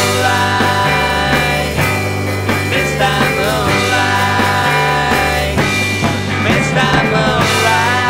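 A rock band plays an instrumental passage on two electric guitars, bass guitar and drums. The bass steps between held notes about once a second under wavering guitar lines.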